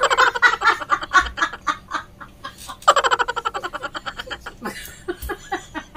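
A woman laughing hard in long, high-pitched bouts: one right at the start and another about three seconds in.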